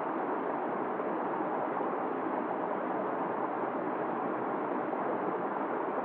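Small waterfall pouring over rocks into a shallow pool: a steady rush of falling and splashing water.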